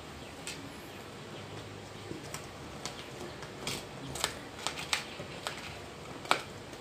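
A spoon clicking and scraping against graham crackers and an aluminium foil tray while spreading condensed milk: irregular light clicks, the sharpest about six seconds in.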